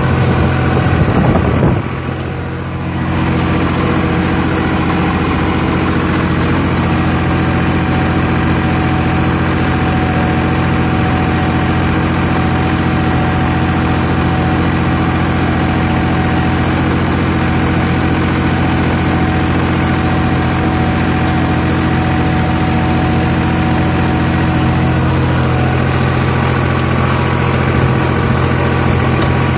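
Fiat 580 DT tractor's diesel engine running steadily under load while ploughing, heard from inside the cab, with a brief drop in level about two seconds in.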